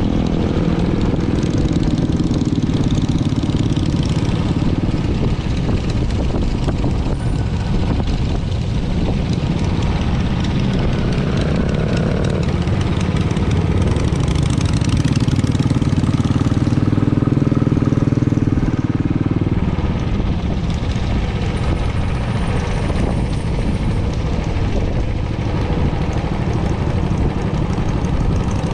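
Motorcycle engine running steadily while riding along a road, with wind and road noise. The engine note grows louder for a few seconds near the middle.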